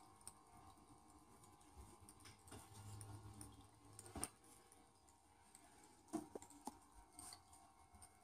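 Near silence with a few faint taps and clicks from a Siberian kitten's paws on a hard tabletop: one sharp tap about four seconds in and a small cluster of taps about two seconds later.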